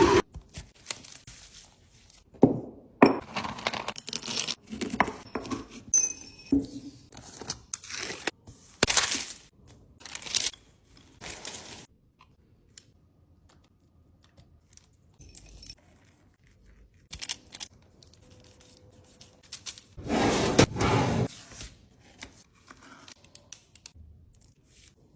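Close-up handling sounds of miniature baking: packaging tearing and crinkling, with scattered taps, clicks and scrapes of small utensils and ingredients, and a longer rustle about twenty seconds in.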